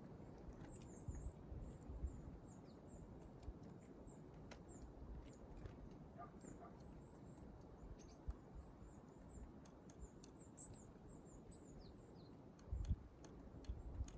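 Small wild birds calling: many short, very high, thin chirps scattered throughout, one a little louder about ten and a half seconds in, with a few light ticks and a soft low thud near the end.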